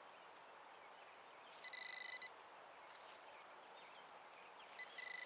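Metal detector beeping over a target in a freshly dug hole: a high electronic tone chattering rapidly on and off, in two bursts, a short one about one and a half seconds in and a longer one near the end.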